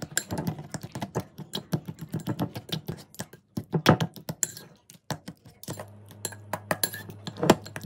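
A kitchen utensil mashing soft cooked apples in a pot for applesauce: quick, irregular clicks and taps against the pot, several a second, with one louder knock near the end.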